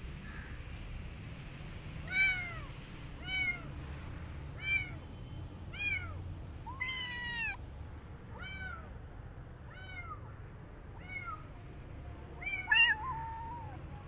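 A kitten meowing over and over: about nine short, high mews that rise and fall, roughly one every second or so. The loudest comes near the end and trails into a longer held cry.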